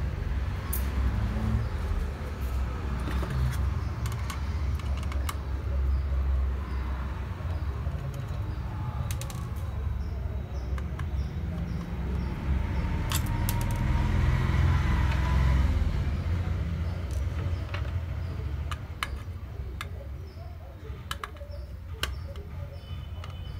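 Scattered small clicks and scrapes of a screwdriver turning the screws in a Sony HD-E1 external hard drive's casing, over a steady low rumble.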